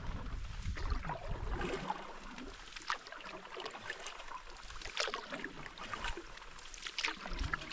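Canoe paddle strokes splashing and dripping in lake water, a stroke every second or two. Wind rumbles on the microphone at the start and picks up again near the end.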